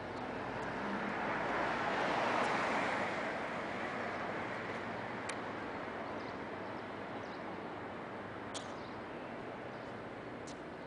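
Outdoor street ambience with a vehicle going by: a hiss of traffic noise swells about two seconds in and slowly fades, with a few faint clicks later.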